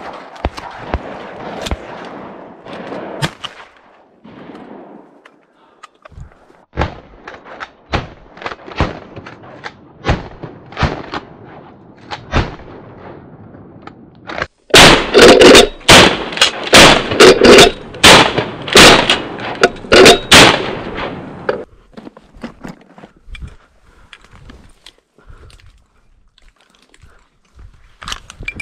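A rapid string of about ten loud shotgun shots over some seven seconds, about halfway through, with lighter clicks and knocks in the seconds before.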